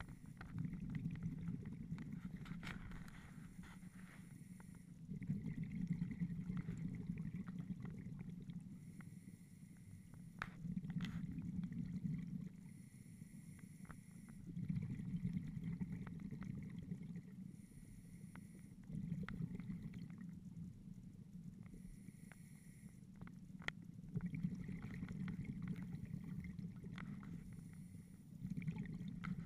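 Scuba diver breathing through a regulator underwater: a short hiss of inhalation alternating with a longer, low bubbling rush of exhaled bubbles, one breath roughly every four to five seconds.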